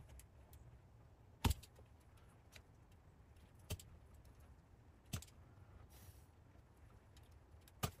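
Four sharp clicks and taps, the first the loudest, from a utility knife and fire alarm cable being handled at a plastic electrical box, over a faint steady low hum.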